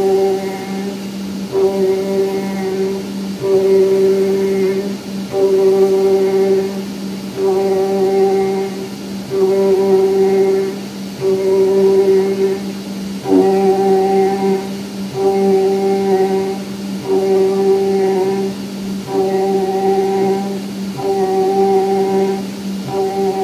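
CNC acoustic panel cutting machine's spindle running while grooving a polyester fibre panel: a steady hum with a higher tone that comes and goes in pulses about a second long.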